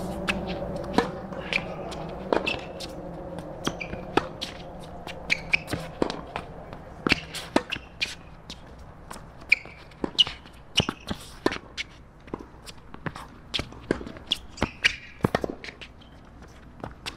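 Tennis balls being struck by rackets and bouncing on a hard court: irregular sharp pops, a few per second at times, with short high squeaks among them.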